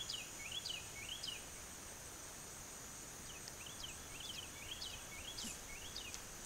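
A steady high insect drone, with a bird singing runs of short up-and-down chirps: a few notes at the start, then another run from about three seconds in.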